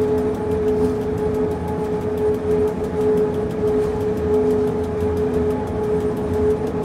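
Electric rack railcar of the Pilatus cog railway running downhill on its rack track: a steady high whine from the drive over a low rumble, with faint fast, regular ticking.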